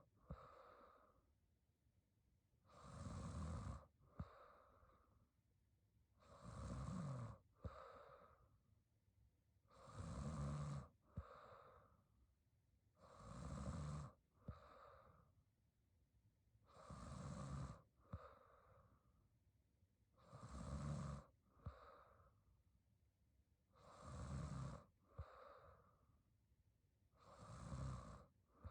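A woman snoring quietly in her sleep, one snore about every three and a half seconds, each followed by a softer breath.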